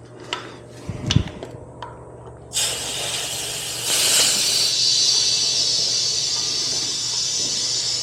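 A few light clicks of handling, then air hissing steadily at the motorcycle's rear tire valve as the air pump is connected to inflate the freshly plugged tire, the hiss growing louder about four seconds in.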